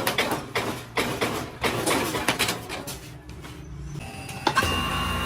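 Irregular clattering, a rapid run of knocks and clicks, then a sharp click about four and a half seconds in and a steady machine hum with a thin high whine.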